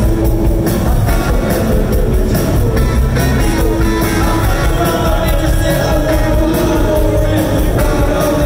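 Live rock band playing: electric guitars, bass and drums with a singer, loud and steady, heard from the crowd.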